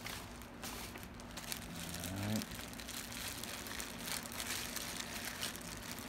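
Clear plastic bag crinkling and rustling as hands open it and handle the parts inside, in irregular crackly bursts.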